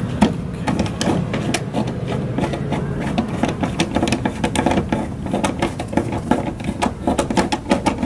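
Hand rivet-nut tool being worked to set a rivnut in the bus's sheet-metal side panel: a rapid, uneven run of small clicks and ticks.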